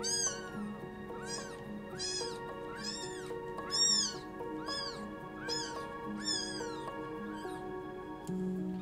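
Newborn kitten mewing over and over, about a dozen short, high-pitched cries, roughly one every half to three quarters of a second. Background music with steady held notes plays underneath.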